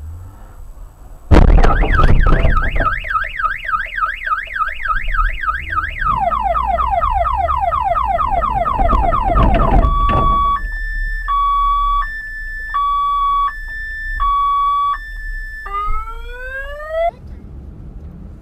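Car alarm siren sounding through its cycle of tones: a fast warble, then repeated falling whoops, then a two-note hi-lo alternation, then rising sweeps. It starts abruptly about a second in and cuts off about 17 seconds in.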